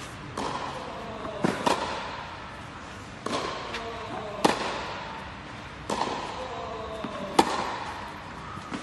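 Tennis ball struck back and forth by rackets in a rally, sharp hits about every one and a half seconds, echoing in an indoor tennis hall.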